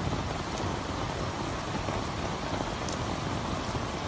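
Steady noise of rain and of floodwater running across a flooded street.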